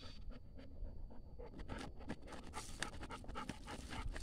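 A dog panting in quick, short breaths, several a second, while it digs, mixed with its paws and muzzle scraping and biting at the dirt in the hole.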